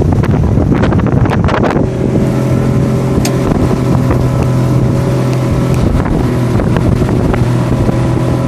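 Motorboat engine running steadily while the boat is under way, with wind buffeting the microphone. There are sharp gusty knocks in the first couple of seconds.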